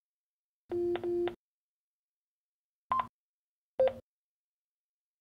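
Vertex Standard EVX-539 handheld two-way radio sounding its beep tones: a low two-pitch tone pulsed twice about a second in, then two short beeps, a higher one and then a lower one. This is the radio's response after a call alert is sent.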